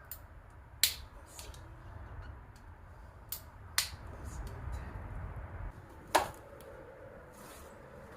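Sharp clacks and knocks of tools and parts being handled during an engine teardown: three loud ones a couple of seconds apart, with lighter taps between.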